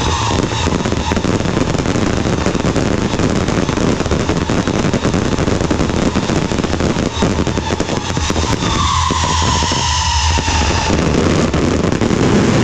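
Fireworks display going off continuously: dense crackling and popping from many shells, comets and fountains at once. A tone slides downward about nine seconds in.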